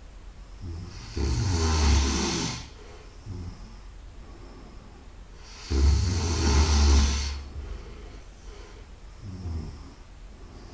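A person snoring very loudly in sleep: two long, loud snores about four and a half seconds apart, each lasting about a second and a half with a deep rumble and a hissing top, and quieter breaths between them.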